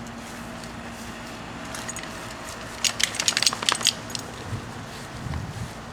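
A quick run of sharp metallic clinks and rattles about three seconds in, lasting about a second, followed by a few soft low thumps.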